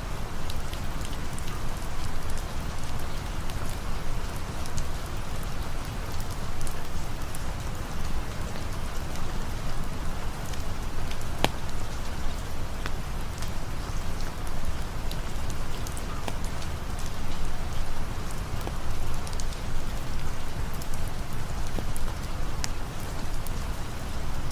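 Steady rain falling, with scattered sharp ticks through it and one louder tick about eleven seconds in.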